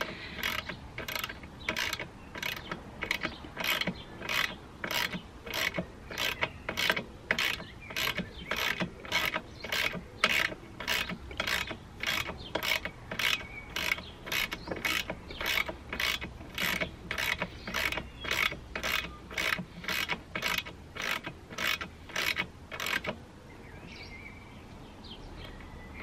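Socket ratchet wrench clicking in steady back-and-forth strokes, about two a second, as it runs a bolt into a motorcycle's rear brake caliper, not yet nipped tight. The clicking stops near the end.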